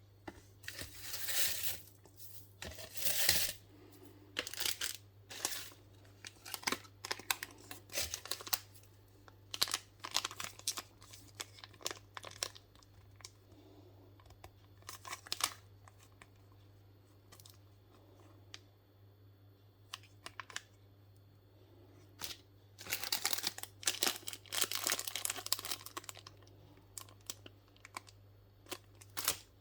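Parcel packaging being handled and opened: short bursts of crinkling and tearing, with a longer stretch of continuous rustling near the end.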